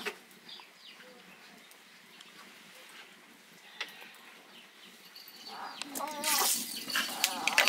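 Quiet kitchen with faint scattered clicks for most of the stretch. Over the last two seconds it grows louder, with a hiss and a wavering animal call.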